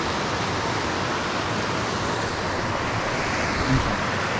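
Small river rushing over a little waterfall: a steady, even rush of water. A soft low bump just before four seconds in.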